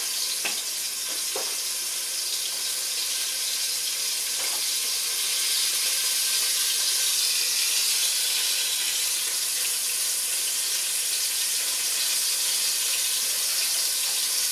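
Flour-dredged chicken breast shallow-frying in hot oil in a stainless steel pot, browning: a steady sizzle, with a few faint pops in the first five seconds.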